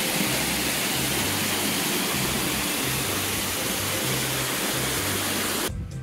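A shallow creek runs steadily over a stony bed with a constant rushing hiss, and background music with repeating low bass notes plays underneath. The water sound cuts off suddenly near the end, leaving only the music.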